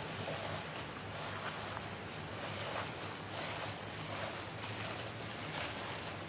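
A plastic-gloved hand tossing dressed salad greens and cucumber in a plastic bowl: soft, repeated rustling and wet squishing strokes every half second or so, over a steady hiss and low hum.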